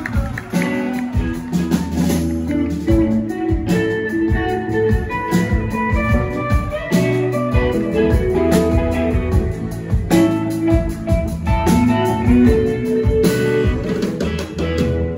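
Live rock band playing an instrumental stretch of a song, led by electric guitar over bass guitar and keyboards.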